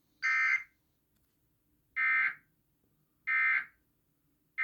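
Emergency Alert System digital data bursts from a television: four short electronic bursts, each under half a second, about a second apart. This is the SAME end-of-message code that closes an EAS test.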